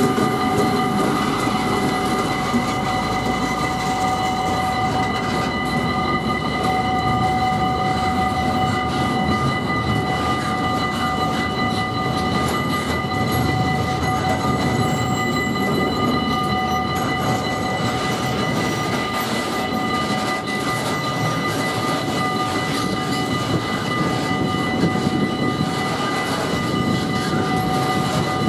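Diesel-hauled freight train of flat wagons loaded with rails passing over a level crossing, its wheels and wagons making a steady running noise. Several steady high-pitched ringing tones sound over it throughout.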